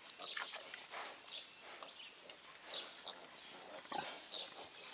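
Faint, scattered farmyard animal sounds: short high chirps and squeaks coming and going, with a soft knock about four seconds in.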